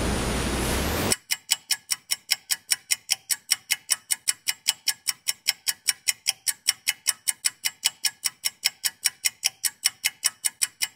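A steady hiss cuts off suddenly about a second in. Then comes an even ticking of about five sharp ticks a second, like a clock-ticking sound effect laid over fast-forwarded footage.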